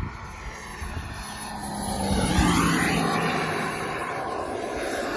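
Kingtech K100 model jet turbine in a Scorpion RC sports jet flying past: the engine sound swells to its loudest about two and a half seconds in and then eases, its pitch falling as it goes by, with a thin high turbine whine above.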